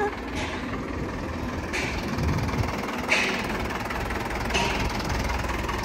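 Tractor's diesel engine running at low speed, a steady low drone, with a short hiss about every second and a half.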